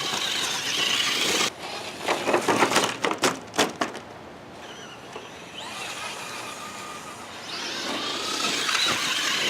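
Electric RC trucks driving: a scrabbling noise, then a run of sharp knocks and crunches about two to four seconds in, followed by a motor whine that rises and falls in pitch.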